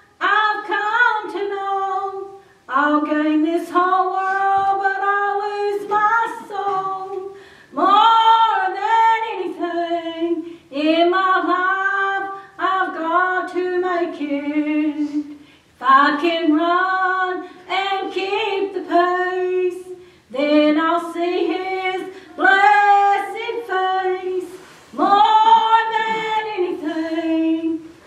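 A woman singing a slow song in short phrases, with brief pauses for breath between them.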